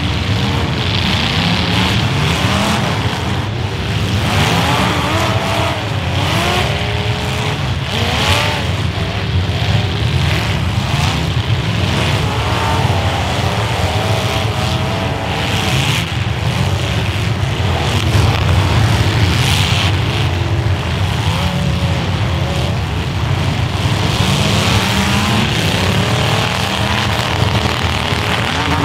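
Several demolition derby cars' engines revving up and down over one another, with tires spinning and skidding and occasional hits.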